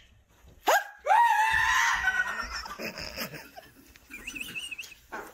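A short high yelp just under a second in, then a long high-pitched scream held for over a second, trailing off into quieter laughing near the end.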